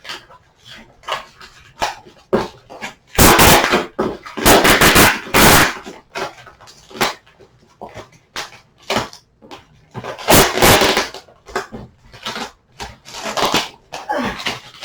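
A cardboard package being struggled open by hand: repeated clicks and knocks, with several long bursts of tearing and crinkling around the middle and again later.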